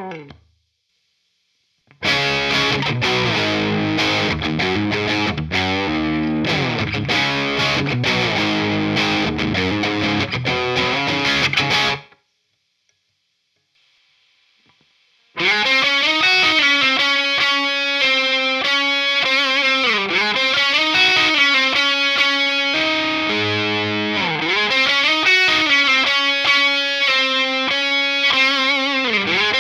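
Distorted electric guitar through the Acheron high-gain amp simulator plugin. A heavy riff with low chugging notes plays for about ten seconds and stops. After a few seconds of near silence, a second passage follows in a different tone, with less low end and held notes.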